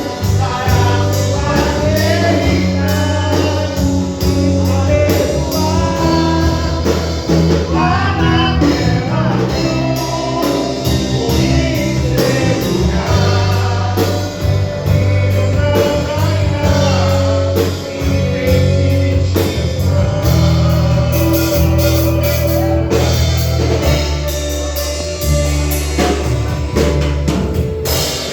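Gospel band performing a song: singing over a drum kit and held low bass notes.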